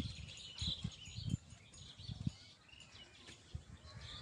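Outdoor birds chirping now and then, with several soft low thuds close to the microphone.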